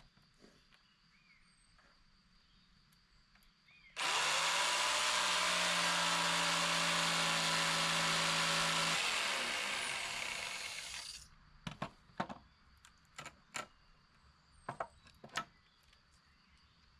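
A handheld electric power tool starts about four seconds in and runs steady at full speed for about five seconds. It is then switched off and winds down to a stop. Several sharp knocks of tool or wood handling follow.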